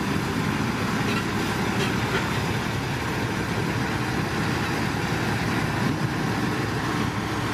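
Loaded dump truck driving slowly over dirt, its diesel engine running steadily.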